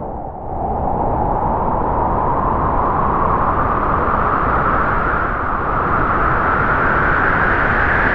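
Steady rushing noise that comes up to full strength about half a second in, its pitch slowly rising through the rest.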